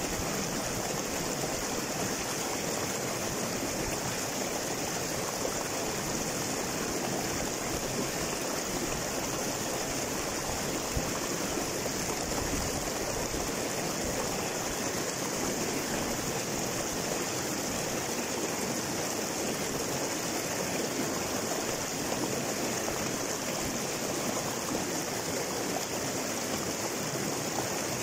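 Small rocky river rushing and splashing over boulders in little cascades, a steady, unbroken water noise.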